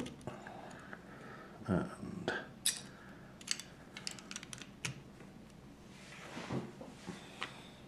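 Plastic Lego bricks clicking and clattering as small pieces are handled and pressed onto a model car chassis, a scattering of short, sharp clicks.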